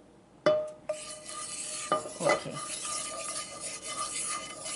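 A wooden spatula knocks against a non-stick frying pan about half a second in, making the pan ring briefly, then rubs and scrapes steadily around the pan, spreading a film of oil over it.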